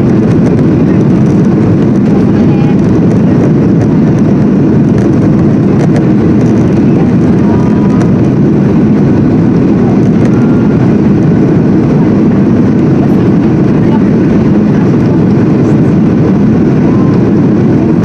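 Steady cabin roar of a Boeing 737-800 on final approach, the CFM56 engines and rushing airflow heard from a window seat over the wing.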